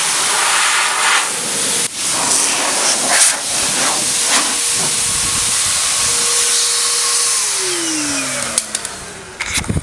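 BikeMaster motorcycle detailing blow dryer running with a steady rushing hiss of air, then switched off about seven seconds in, its motor whine falling in pitch as it winds down. A few knocks near the end.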